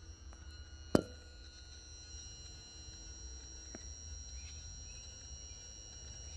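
2013 Triumph Tiger 1200 with the key turned on and the engine off, giving a steady high-pitched electronic whine made of several tones at once; a sharp click about a second in is the loudest sound. The whine is a normal key-on sound on these bikes.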